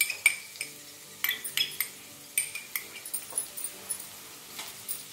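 Steel spoon clinking and scraping against a small glass bowl and the kadhai while spooning out Schezwan chutney: a run of sharp, ringing clinks at irregular intervals.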